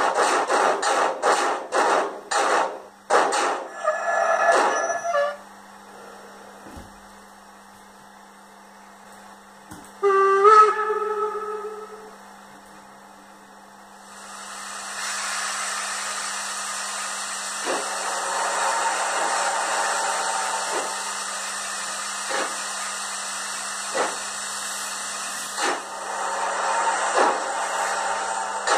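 Digital steam sound from an ESU LokSound 5 decoder in a Roco H0 BR 85 model locomotive, played through the model's small speaker: rhythmic steam chuffs that stop about three seconds in, a brief squeal, then a short whistle about ten seconds in. From about fourteen seconds a steady steam hiss runs on with faint knocks every second or two.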